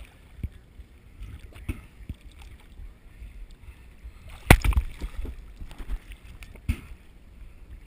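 Pond water sloshing and lapping against an action camera's waterproof housing at the surface, with a low steady rumble. A few sharp splashes or knocks on the housing stand out, the loudest about four and a half seconds in and another near the end.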